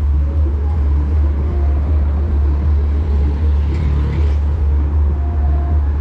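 A steady, loud low rumble of outdoor background noise.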